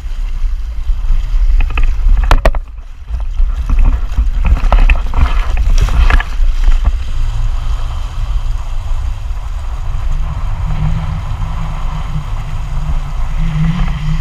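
Wind buffeting the microphone of a camera riding on a towed inflatable banana boat, over the rush and splash of water along the hull, with a few sharp knocks in the first half. A low steady hum becomes stronger after about ten seconds.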